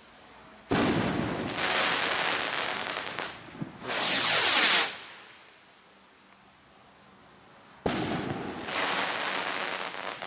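Firework rockets: one launches with a sudden rushing whoosh that falls in pitch as it climbs. Its crackle-pistil burst follows about four seconds in, a loud, bright crackling that lasts about a second. A second rocket launches with the same whoosh near the end.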